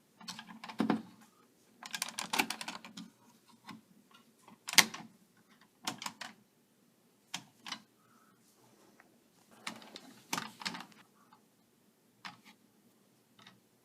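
Scattered, irregular clicks and knocks with some rustling, about a dozen over the span, with no steady machine sound.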